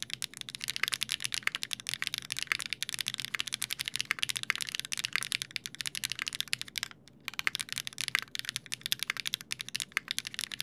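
Fast typing on a milled-metal custom tenkeyless mechanical keyboard with Geonworks Raw ZERO switches, a dense run of key clacks with a short pause about two-thirds through. The strokes carry a metallic ping that the builder puts down to the bottom housing itself resonating, since the case leaves no room for bottom foam.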